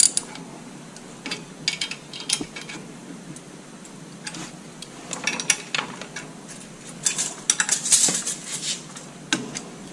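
Socket ratchet clicking and steel tools clinking as the set screws of a three-point quick hitch are snugged against the lift arm, in three short spells.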